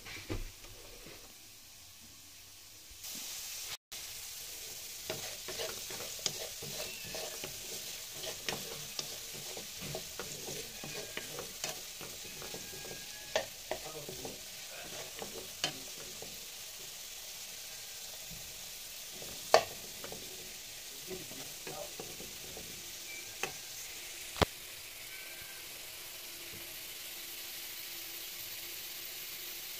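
Diced potatoes sizzling in hot oil in a non-stick wok, starting a few seconds in. A wooden spoon stirs them, knocking against the pan from time to time, with a few sharper knocks standing out.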